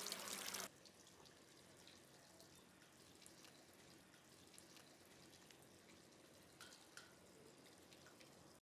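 Hot-spring water pouring from a bamboo spout into a stone footbath basin, cut off abruptly after under a second. Then faint outdoor ambience with a few soft ticks, near silence, until the sound drops out entirely just before the end.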